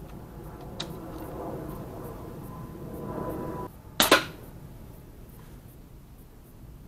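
Air rifle firing a pellet: one sharp double crack about four seconds in.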